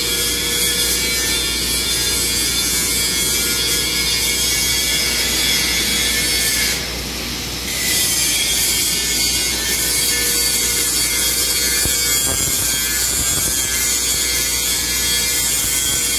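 Angle grinder running against steel in a steady grind. It eases off briefly about seven seconds in, then grinds again.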